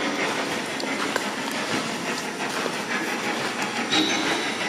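Radio static: a steady hiss crackling with fast, irregular clicks.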